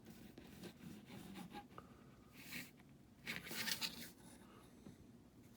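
Faint handling noise as a plastic model kit's sprues and packaging are moved about: small clicks and two short rustles, the second about three seconds in and the loudest.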